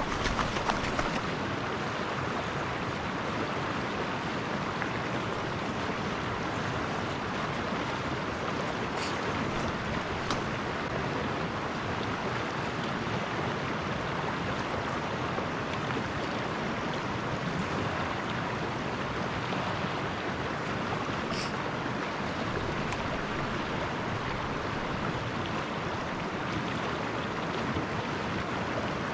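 Small trout stream rushing steadily, its water running fast after a night of snow.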